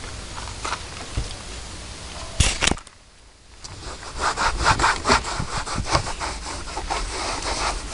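Cloth rubbing over a Chevrolet truck's steering wheel as it is wiped clean, in quick back-and-forth scrubbing strokes. The strokes pause briefly about three seconds in, then pick up again, faster.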